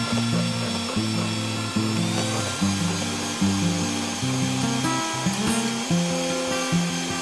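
Background music with a steady melody, and an electric hand mixer whirring underneath, its whine rising in pitch about two seconds in as the speed changes.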